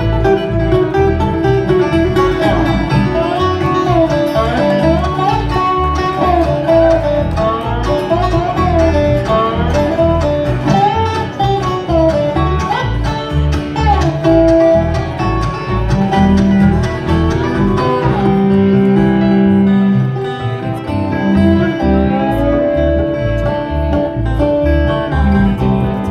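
Bluegrass band playing an instrumental passage without singing: banjo and guitar picking under a wavering lead melody.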